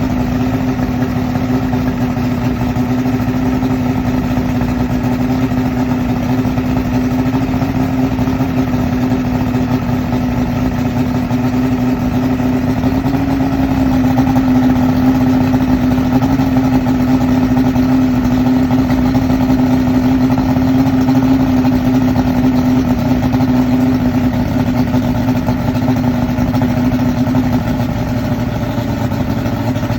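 Yamaha OX66 150 HP V6 two-stroke fuel-injected outboard idling on a flushing hose, a rough low idle that sags toward stalling. The idle rises a little midway and drops back near the end; the owner later cured the problem by adjusting the oiler arm.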